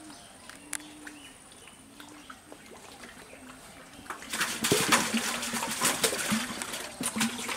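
A hooked fish splashing and thrashing at the surface of a pond against a bent bamboo rod. The water sound starts suddenly about four seconds in, a loud burst of splashing with many sharp slaps, and dies down near the end.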